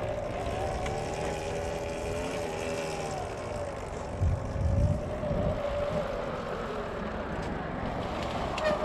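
72-volt Rawrr Mantis electric dirt bike's motor whining while riding, its pitch rising and falling with the throttle, then holding steadier, over tyre and wind noise. A couple of low thumps about four seconds in.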